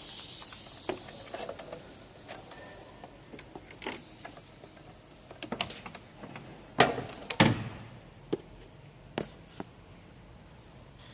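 Scattered metallic clicks and knocks of hand tools during an engine-mount replacement, with a couple of heavier knocks a little past the middle.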